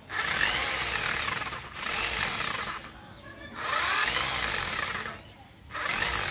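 Corded electric drill running in four short bursts of about a second each, its motor pitch rising and falling as it drives bolts into a satellite dish's wall-mount bracket.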